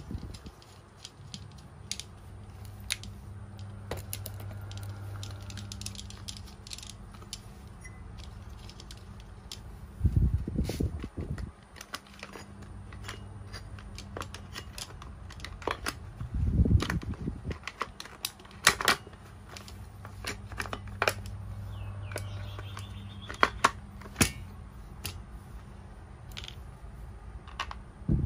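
Small plastic and metal clicks, taps and scrapes as a brush-cutter engine's covers and blue plastic shroud are fitted together by hand, with two louder rumbling knocks about ten and sixteen seconds in, over a low steady hum.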